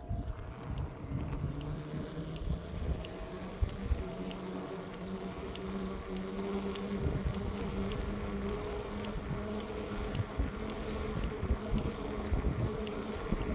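Specialized Turbo Tero 5.0 e-bike being ridden: a steady electric motor hum under low rumble, with a regular ticking from the rear wheel, a few ticks a second. The cause of the tick is unknown to the owner and dealer, and it goes away when the rear tyre pressure is very low.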